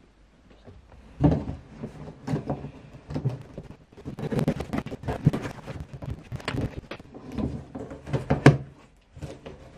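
A cardboard box being handled and pressed by hand: an irregular run of knocks, scrapes and rustles of cardboard, with a sharp knock about a second in and another near the end.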